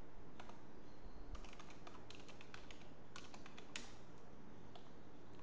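Typing on a computer keyboard: irregular key clicks, a few scattered at first, then a quick run of keystrokes through the middle, thinning out again near the end.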